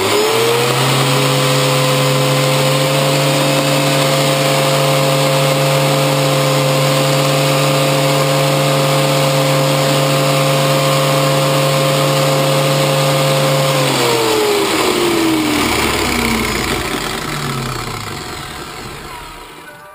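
Metabo angle grinder switched on, spinning up quickly to a steady whine and running at an even pitch. It is switched off about 14 seconds in and winds down with a falling whine.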